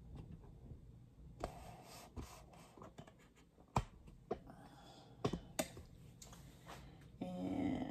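Handling noise from a phone camera being moved and set down on a kitchen counter: scattered light clicks and knocks with faint rustling, one sharper knock about halfway through. A brief hum near the end.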